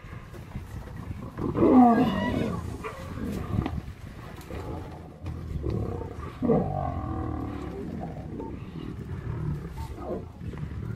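Lions snarling and growling over a zebra foal that is still alive, mixed with the foal's distressed cries. Two loud bouts of wavering, pitched calls come about two seconds in and again about six and a half seconds in, with lower growling between.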